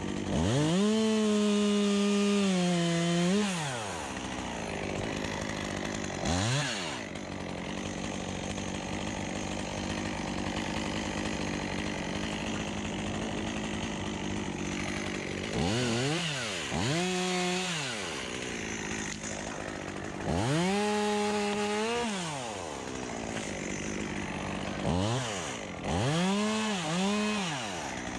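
Two-stroke chainsaw idling, then revved to full throttle several times, the longest near the start. Each time the pitch sweeps up fast, holds with a slight sag, as when the chain bites into the wood, then drops back to idle. Some revs are only short blips.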